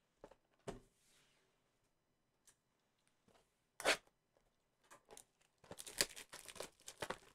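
Plastic shrink-wrap on a Panini Prizm football blaster box being torn and crinkled off by hand, crackling from about five and a half seconds in. Before that, a couple of soft knocks and one sharp crack about four seconds in as the cardboard box is picked up and handled.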